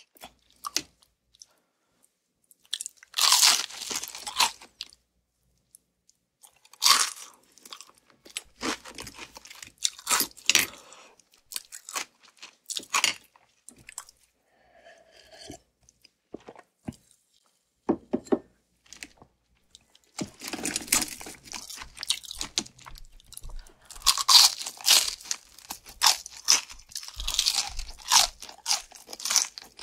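Crispy Kyochon Salsal fried chicken being bitten and chewed close to the microphone: loud crackling crunches in irregular clusters with short pauses between them, coming thicker and almost continuous in the last third.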